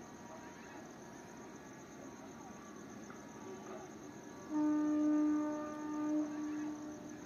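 An EMU local train's horn sounds one long, steady note starting about four and a half seconds in and lasting over two seconds. Crickets chirr steadily underneath.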